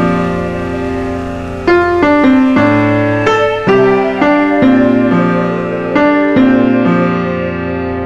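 Background piano music: slow single notes and chords, each struck and left to fade, about one a second.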